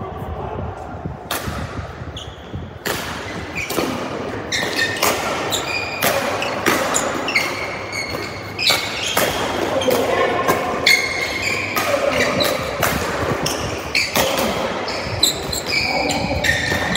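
Badminton rally: rackets striking the shuttlecock back and forth in sharp hits every second or so, with shoes squeaking and stepping on the court floor.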